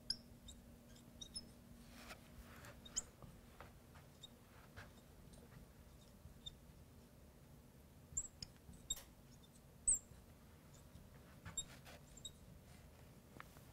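Faint, scattered high squeaks and light taps of a marker writing on a glass lightboard.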